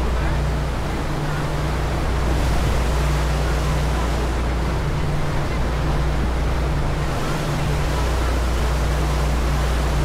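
Ferry under way: its engines run with a steady low drone under the continuous rush of the wake churning behind the stern.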